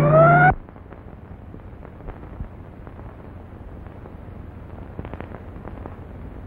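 A sustained music chord cuts off sharply about half a second in. It leaves the steady hiss and low hum of an old optical film soundtrack, with scattered faint clicks and crackles.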